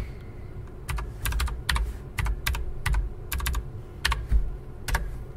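Typing on a computer keyboard: about fifteen key clicks in uneven bursts, stopping shortly before the end.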